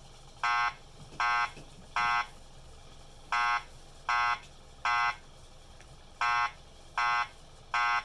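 Wheelock ET70WP-2475 8-watt fire alarm speaker sounding the temporal-3 evacuation tone: three groups of three short, even beeps with a pause after each group. This is the standard fire evacuation signal.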